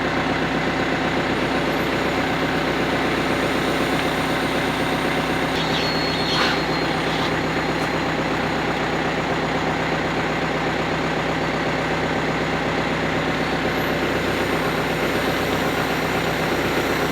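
Caterpillar 430D backhoe's diesel engine running steadily at an even, unchanging speed, with one small knock about six seconds in.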